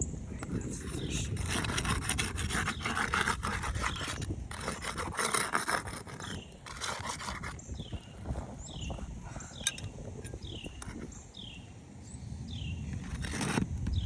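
Scraping and rubbing of a hand tool working roof shingles loose, in several rasping stretches. A bird repeats a short falling chirp throughout.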